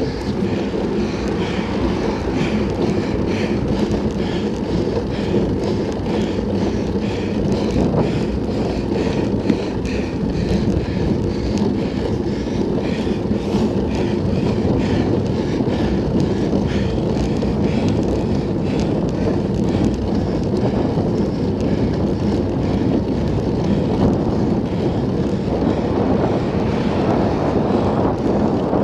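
Wind rushing over the microphone of a Garmin VIRB action camera on a moving bicycle: a steady, low rumble with no let-up.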